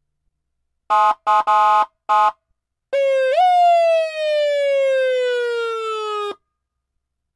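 Federal Signal PA300 electronic siren: four short blasts of its steady, buzzy horn tone, then a siren tone that steps up briefly and slowly falls in pitch for about three seconds, a long coast-down, before cutting off sharply.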